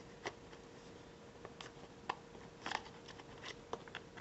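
Faint, scattered clicks and taps of hard plastic as the grey water reservoir of a Feather the Owl diffuser is handled and seated back into its owl-shaped housing.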